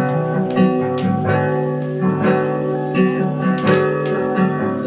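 Background music: acoustic guitar strumming with a steady rhythm.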